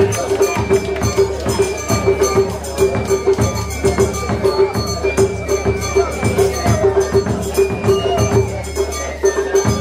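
Traditional Japanese festival music: a steady pitched tone pulsing in a regular rhythm over many sharp percussive strikes.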